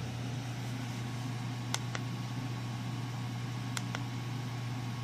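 Steady low electrical hum of room background noise, with two pairs of faint light clicks, one pair about two seconds in and another near four seconds.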